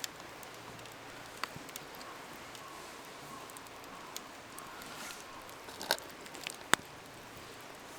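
Scattered sharp clicks and pops over a steady hiss. The two loudest snaps come near the end, less than a second apart.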